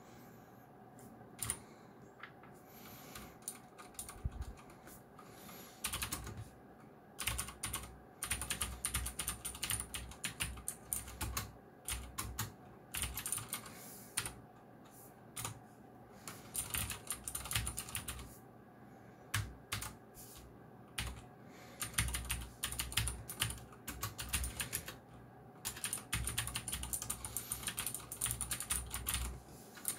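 Geekstar × Deck Hassium Pro 108 mechanical keyboard with clicky blue switches being typed on fast, in bursts of rapid keystrokes separated by short pauses.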